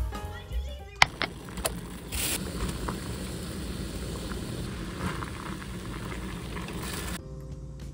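Background music for about the first second, then a sharp click and water boiling hard in a stainless steel pot of mushrooms and cabbage, a steady bubbling hiss; the music returns near the end.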